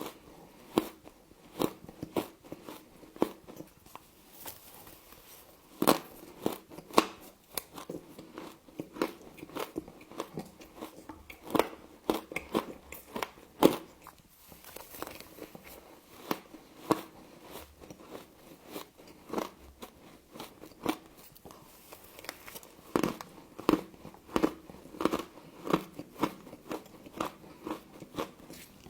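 Close-up crunching and chewing of frost from a humidifier: many sharp, irregular bites, often several in quick succession.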